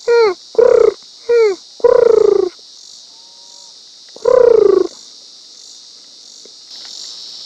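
Crickets chirping steadily in a pulsing chorus, broken by five loud, whining calls that each fall in pitch, four in quick succession and a fifth after a pause of nearly two seconds.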